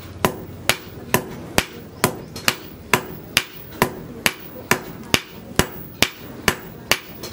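Hand hammer forging a red-hot leaf-spring steel blade on a cylindrical steel anvil: steady, evenly spaced blows about two a second, each with a short metallic ring.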